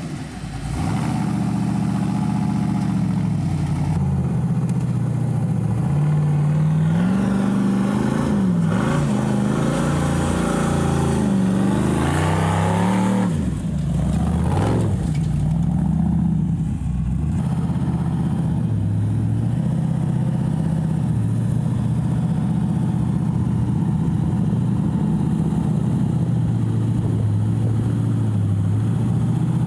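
Rock bouncer buggy's engine revving up and down repeatedly while the buggy is driven, settling into a steadier run for the second half.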